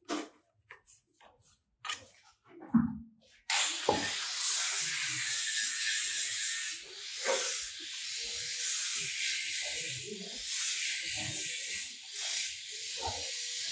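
Light taps and clicks of plastering tools on the steps, then a steady hiss that starts suddenly a few seconds in and runs on with soft knocks beneath it.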